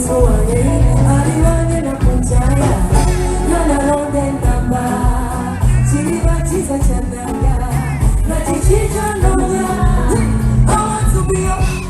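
Pop song with a lead singer over a steady, heavy beat.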